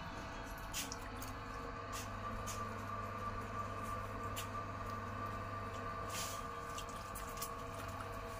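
Wet clay squishing under a potter's hands as a pot is thrown on a spinning potter's wheel, with scattered short wet squelches. A steady hum runs underneath.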